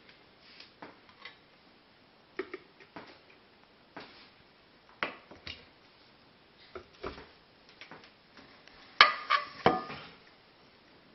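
Light clinks and knocks of kitchenware as cooked pork is lifted out of a multicooker's steamer basket onto a plate: scattered single taps, with a louder cluster of clatters near the end.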